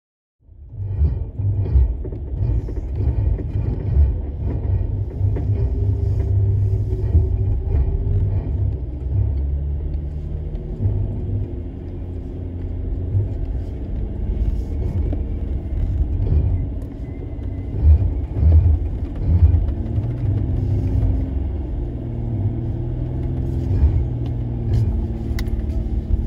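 A Jeep Gladiator's engine running with a low rumble, heard from inside its cab, the engine note rising and falling and surging louder a few times past the middle while the truck is stuck in deep mud and strapped to a recovery vehicle.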